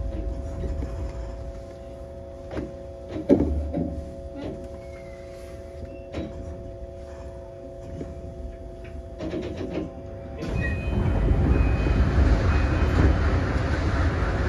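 Tokyo Monorail train heard from the cab as it pulls out of a station: a steady hum of several tones with scattered clicks and knocks, one knock about three seconds in louder than the rest. About ten seconds in, the running noise rises suddenly and stays loud.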